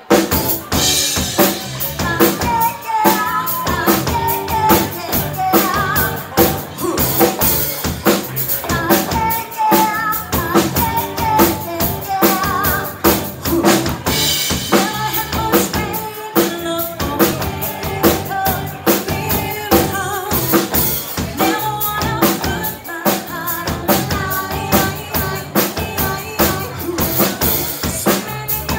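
A live band playing: a full drum kit with kick and snare driving a steady beat, with bass, electric guitar and female vocals. The whole band comes in at once, loud, right at the start.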